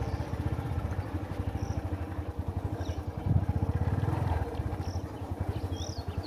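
Small motorcycle engine running at a steady low speed, its exhaust pulsing rapidly and evenly. A few faint high chirps sound above it.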